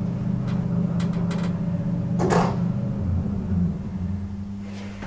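Lift machinery running: a steady electric hum with a few light clicks about a second in and a brief swish about two seconds in. The hum shifts in tone about three and a half seconds in.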